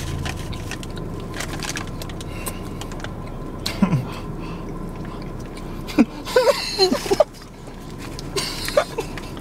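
A person biting into and chewing a flaky beef patty, the paper bag crinkling, over a steady low hum inside a car. Short bursts of laughter break out about six seconds in.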